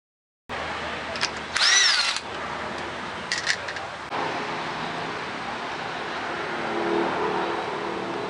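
A handheld power tool run in one short trigger pull, its whine rising and falling within about half a second, with a few sharp clicks before and after it. A steady hiss follows for the rest of the time.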